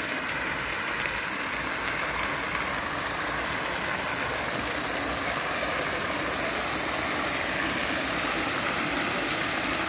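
Water jets of Marienbad's Singing Fountain spraying and splashing into the basin: a steady, even rush of water.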